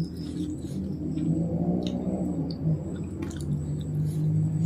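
Close-up chewing of a mouthful of rice and orek tempe, with wet mouth smacks and scattered clicks.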